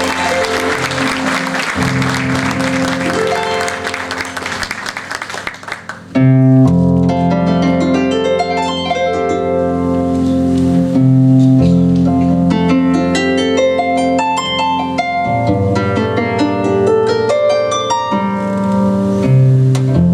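Audience applause dying away over the first few seconds while a harp begins playing. About six seconds in, the harp comes in loud and clear with a plucked melody over deep bass notes.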